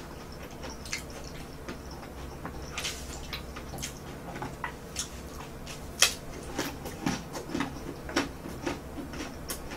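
Close-miked chewing of crispy fried bread sticks: wet mouth smacks and soft, scattered crunches, with one sharper crunch about six seconds in.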